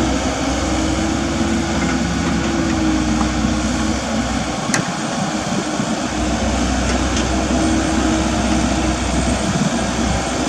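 Komatsu mini excavator's engine running steadily, with one sharp metallic click about halfway through.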